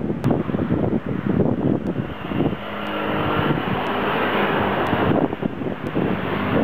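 Wind buffeting the microphone, with a motor vehicle passing on the road from about two and a half seconds in; its engine tone swells and then drops away about five seconds in.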